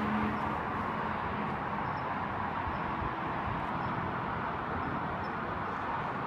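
Steady, even rushing outdoor ambience with no distinct events in it.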